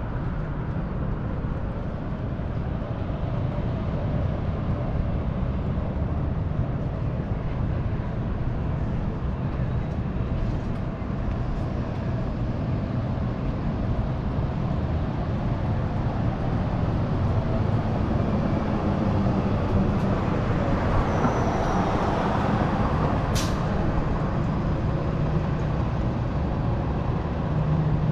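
Downtown street traffic with a city bus: a steady low rumble of vehicles that swells a little past the middle, with one brief sharp hiss about three-quarters of the way through.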